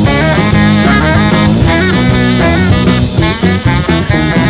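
Live jazz trio playing loud improvised music: tenor saxophone playing a bending lead line over baritone guitar and drum kit.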